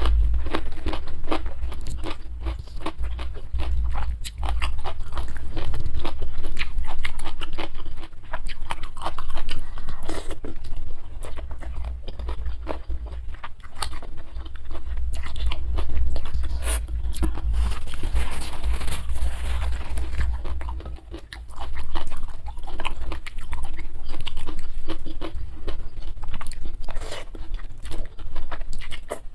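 Close-miked eating: steady biting, crisp crunching and wet chewing of a meal of fried instant noodles with cucumber and krupuk crackers.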